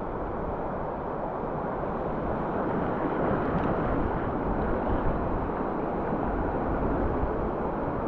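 Whitewater of a small tidal bore breaking and rushing around the kayak's bow, a steady rush of churning water that swells a little in the middle, with wind buffeting the microphone.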